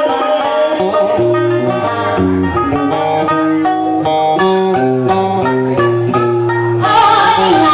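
Instrumental interlude of Southern Vietnamese đờn ca tài tử (cải lương) music: a plucked guitar picks out a melody of separate notes over a low held bass. The music grows brighter and fuller near the end.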